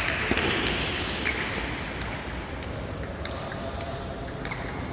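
Table tennis ball, a few separate sharp clicks as it strikes a bat or the table, over the steady hum of a large hall.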